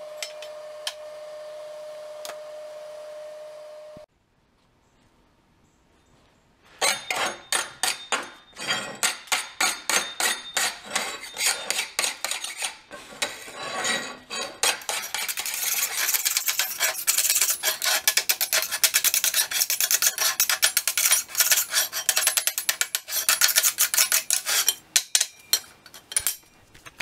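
Hand file rasping in quick repeated strokes along the edge of a quarter-inch steel plate, with the strokes coming faster and denser about halfway through. Before it, a steady hum with a few clicks cuts off about four seconds in.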